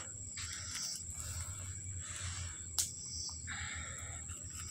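Outdoor ground-level ambience: a steady high-pitched insect drone over patches of soft rustling, with one sharp click about three seconds in.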